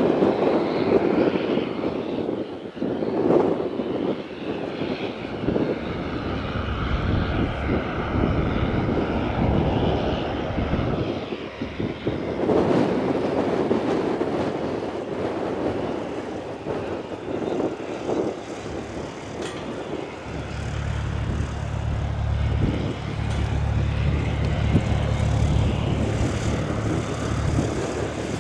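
Cessna 172 piston engine and propeller running at low taxiing power. About two-thirds of the way in, a steady low hum comes in as the plane draws close.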